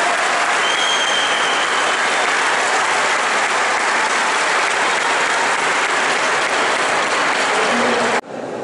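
Audience applauding steadily after a paloteo stick dance, cut off abruptly near the end.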